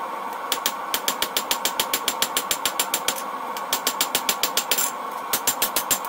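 A hand hammer strikes a red-hot leaf-spring steel blade held on an anvil. The footage is sped up four times, so the blows come rapid-fire at about eight a second, in three runs with two short pauses. A steady hiss runs underneath.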